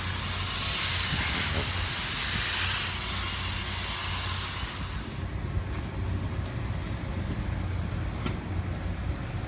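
Steady loud hiss over a continuous low machinery hum, the hiss easing off about five seconds in.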